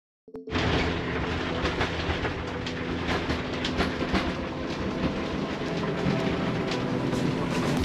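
Jeanneau Merry Fisher 895 motorboat running at speed, starting abruptly a moment in: a steady outboard engine hum under rushing wind and water, with irregular knocks of the hull against the chop.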